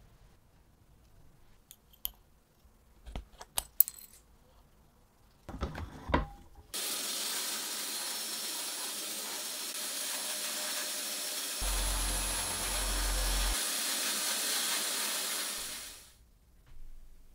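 A few sharp metal clicks and scrapes as stamped score-number discs are pried off a wooden rail with a screwdriver. About seven seconds in, a sandblaster nozzle starts a steady hiss of air and grit against the wood, which stops suddenly near the end.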